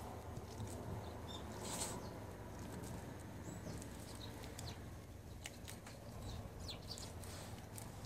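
A Jindo dog quietly chewing and licking a stick of soft, warm garaetteok rice cake, with soft wet mouth clicks over a faint steady background and scattered faint high chirps.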